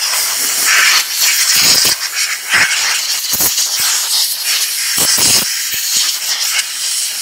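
Compressed-air blow gun hissing loudly and steadily as it blows dust off a tractor's air filter cover, with a few brief low thumps.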